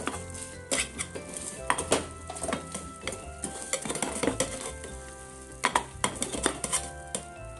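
Aluminium lid clinking and scraping on a small pan as it is set on and held down, with several sharp clinks, over egg simmering and sizzling in broth.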